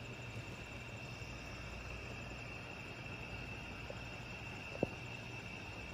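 Steady night chorus of crickets, an unbroken high trill, with a single sharp click near the end.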